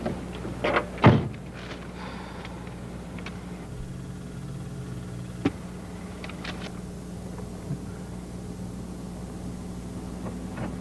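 A car door slams shut about a second in, followed by a few faint clicks over a steady low hum.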